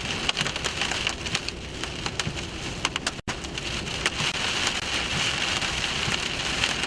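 Heavy rain pelting on a storm-chase vehicle, a steady hiss full of sharp individual drop strikes. The sound drops out for an instant about three seconds in.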